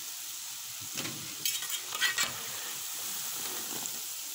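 Small pieces of dough deep-frying in hot oil with a steady sizzle. From about a second in, a metal spoon scrapes and clinks against the pot several times as it lifts the fried daddies out.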